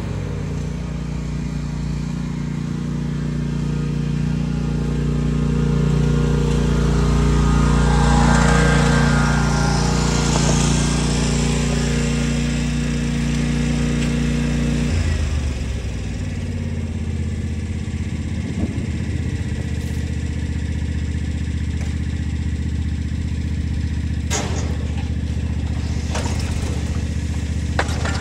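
Lawn mower engine running, getting louder towards the middle, then dropping suddenly to a lower, steady idle about halfway through. There are a few sharp clicks near the end.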